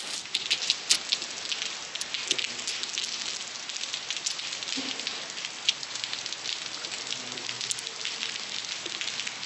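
Steady rain falling on a wet tiled terrace: an even hiss of rainfall with many sharp individual drop splashes.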